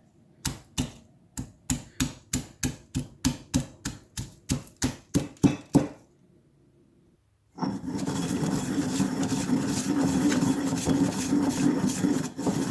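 Pestle pounding whole garlic cloves, black peppercorns and cumin in a mortar: about twenty sharp strikes, a little over three a second, stopping about six seconds in. After a short pause, a loud steady mechanical whirr starts about seven and a half seconds in and keeps going.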